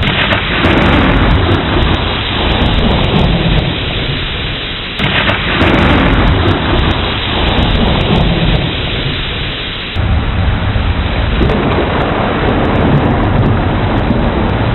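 Steady heavy rain with rolling, low thunder rumbling under it; the sound shifts abruptly about five and ten seconds in.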